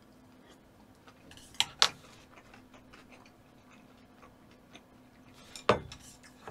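Eating utensils clicking against dishes. There are two sharp clicks about one and a half seconds in and a loud one near the end, with smaller ticks between, over a faint steady hum.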